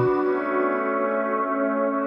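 Background music: a single chord held steady.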